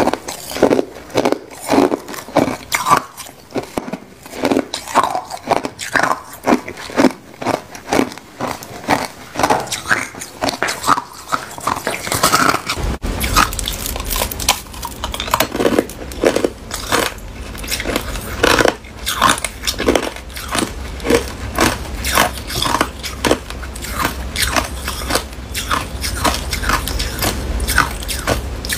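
Crushed ice being bitten and crunched between the teeth: a run of sharp, brittle crunches at about two a second. About halfway through, a steady low hum comes in under the crunching.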